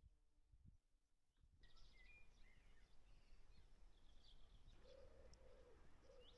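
Faint outdoor birdsong: near silence for the first second and a half, then small birds chirping, and from about two-thirds of the way through a pigeon cooing in a steady repeated phrase.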